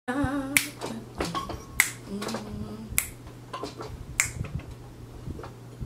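Four sharp finger snaps, evenly spaced a little over a second apart, with a short wavering hum of a voice at the very start and a steady low hum underneath.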